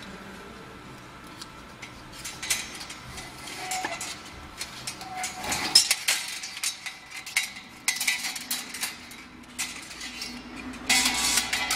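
Irregular metallic clicks and clinks from a compact metal-strip slitting machine's stacked circular knives and thin metal strip, loudest about six seconds in and again near the end.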